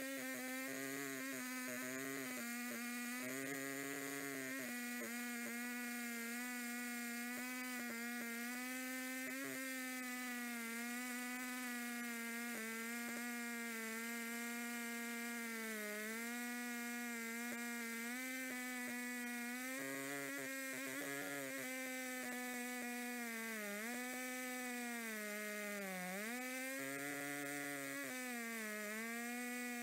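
Two-stroke chainsaw at full throttle, ripping lengthwise through a log in a homemade chainsaw mill: a steady high buzz that dips in pitch several times near the end as the saw bogs down under load.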